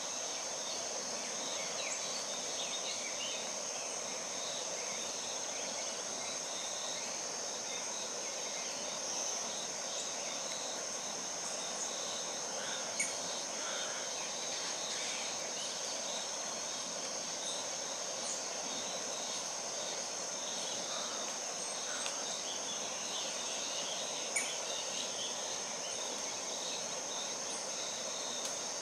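Steady high-pitched insect chorus, with scattered faint chirps over it and two sharp clicks, one about halfway through and one later.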